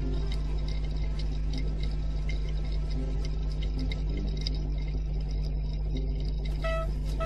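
Quiet ambient music passage: a steady low rumble with scattered clicking and faint soft tones, and a flute-like melody comes in near the end.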